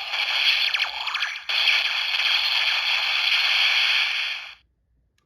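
Electronic finisher sound effect from a Kamen Rider DX Taddle Legacy Gashat toy, played through its small speaker: harsh, noisy effects with sweeping tones, a brief break about a second and a half in, cutting off suddenly near the end.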